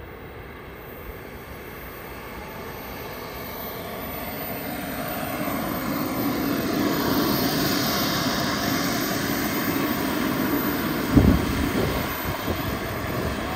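Small turbine engine of a model F-16 jet running, growing steadily louder over the first half and holding there, with a high hiss strongest midway. A single short thump sounds near the end.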